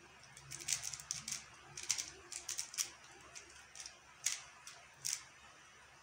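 QiYi X-Man Tornado V1 3x3 speedcube being turned fast by hand: quick runs of light plastic clicks as the layers snap round, in dense bursts for the first few seconds, then sparser, stopping about five seconds in.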